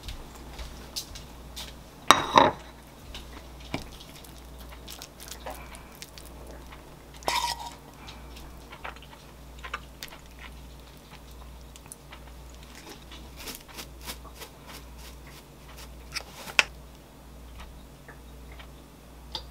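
Ceramic dishes being handled and set down on a kitchen counter: scattered light knocks and clinks. A few sharper clinks ring briefly, about two, seven and sixteen seconds in, over a faint steady low hum.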